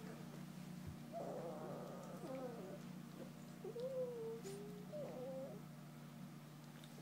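Four-week-old English Golden Retriever puppies whining: high, wavering cries, a long one about a second in, then two shorter ones, over a steady low hum.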